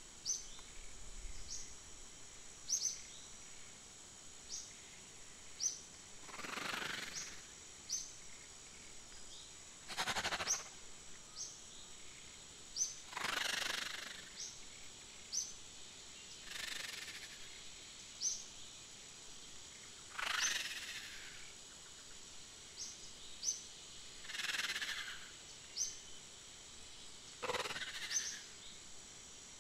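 Outdoor nature ambience: short rising bird chirps every second or two over a steady high insect drone, with a soft rustling swell about every three and a half seconds.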